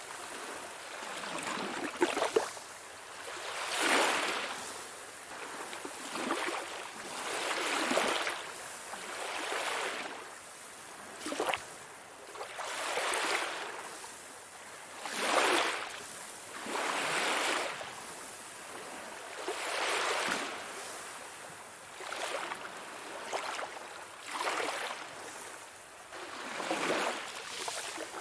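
Sea waves breaking and washing in on the shore in a steady rhythm, a swell of surf rising and falling every two seconds or so, with a few brief sharp splashes.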